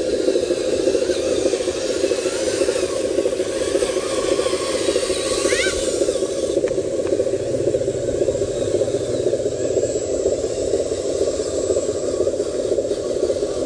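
Radio-controlled model truck's electric motor and gearbox whining as it crawls through grass, the whine rising in pitch around five to six seconds in. Under it runs a loud, steady chorus of frogs.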